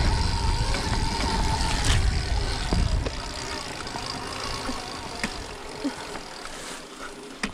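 Wind buffeting the microphone over the faint whine of an 80 HP Stark Varg electric dirt bike being ridden. The rumble drops away about three seconds in, leaving a quieter stretch with a few light knocks.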